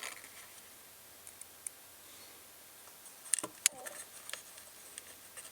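Faint, scattered small clicks and taps of a screw and screwdriver being handled against a small wooden speaker case, with a brief cluster of sharper clicks about three and a half seconds in.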